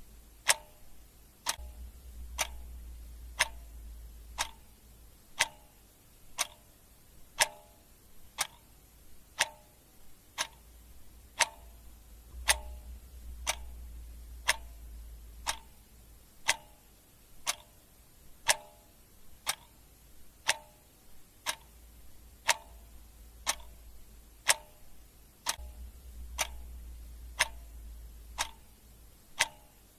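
Clock ticking steadily, about one sharp tick a second.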